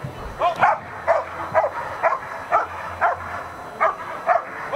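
German Shepherd dog barking repeatedly, about two barks a second.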